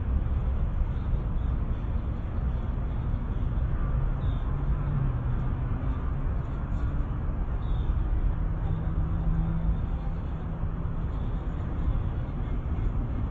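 Small electric motor and gearbox of a WPL C34 RC crawler truck whining faintly under load, over a steady low rumble. The whine comes in twice, about four seconds in and again about eight seconds in.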